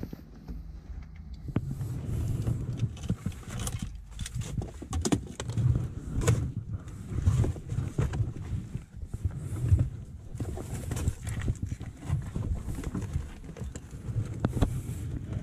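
Irregular knocks, clicks and rustling from gloved hands searching around a car's steering wheel and dashboard, over an uneven low rumble of handling noise.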